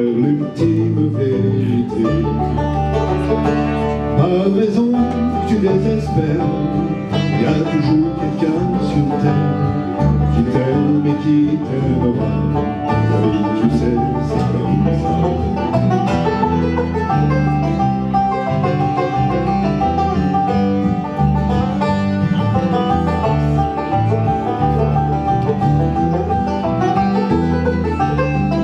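Live bluegrass-style acoustic band playing: a five-string banjo picking quick rolls over acoustic guitar strumming, with a steady bass line underneath.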